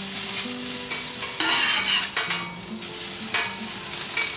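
Pot stickers and hot dogs sizzling on a hot quarter-inch mild-steel griddle plate, with metal tongs scraping and tapping on the steel as the dumplings are turned. The sizzle flares louder about a second and a half in.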